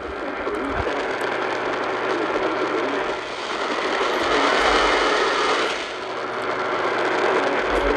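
AM radio static: a dense crackling hiss with a faint low hum that swells up in strength.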